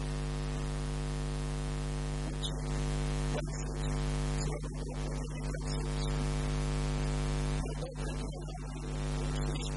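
Loud, steady electrical mains hum, a buzz made of many even overtones, with hiss over it.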